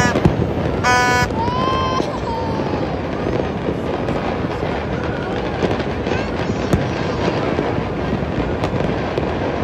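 Many distant aerial fireworks going off across a city, a continuous dense crackle and popping. A few short high-pitched tones sound about a second in.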